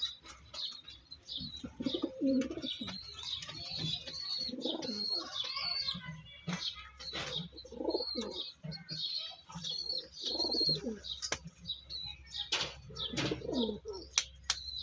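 Pigeons cooing, low calls repeating every couple of seconds, with repeated high chirps throughout and a few short sharp clicks.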